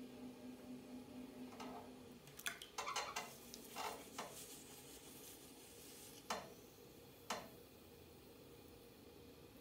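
Potter's wheel humming quietly as wet hands shape a spinning clay plate, with soft wet squelches and clicks from the hands on the clay: a cluster about two to four seconds in, then two single ones later.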